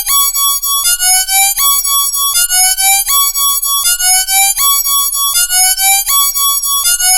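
High-pitched electronic science-fiction alarm siren: a tone that sweeps upward over a steady higher tone, repeating about every three-quarters of a second, with a short click each time it restarts.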